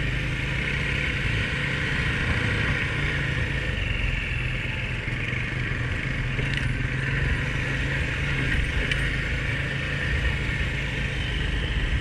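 Honda ATV engine running steadily, a continuous low drone with an even rush of ride noise over it.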